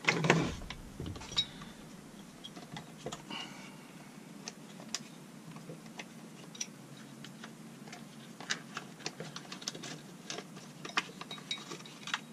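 Light clicks and taps of small chainsaw parts and hand tools being handled during disassembly, with a louder rustle and knock at the start and a busier run of clicks in the second half.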